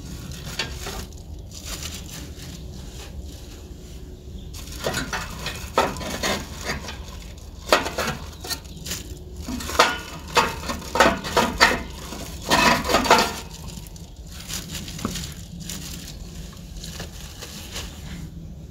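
Plastic wrapping crinkling, with light metal clinks, as plastic-wrapped metal flue pipe sections are pulled out of a wood stove's oven compartment and set down. The crinkling comes in irregular bursts, busiest through the middle, over a steady low rumble.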